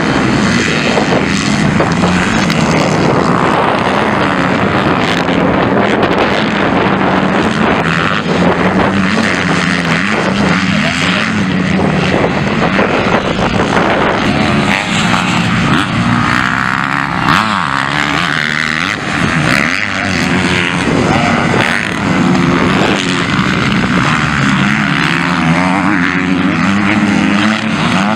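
MX2-class motocross bikes racing around the dirt track, their engines revving up and down as riders accelerate out of corners and over jumps.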